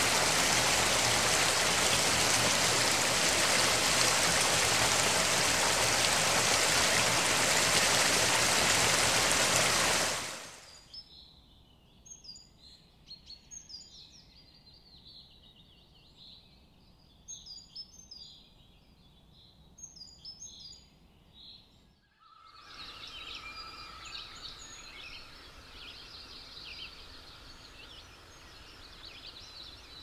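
A waterfall splashing, a loud steady rush of water that stops abruptly about ten seconds in. Then quiet outdoor ambience with scattered short bird chirps. About two-thirds of the way through this gives way to a busier run of bird calls over a slightly louder background.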